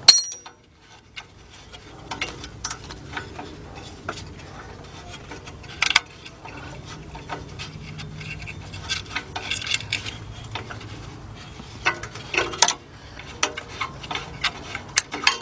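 Metal hand tools clinking and clattering as they are handled: scattered metallic clicks and knocks, starting with a short ringing clink and with louder knocks about six seconds in and again near twelve seconds.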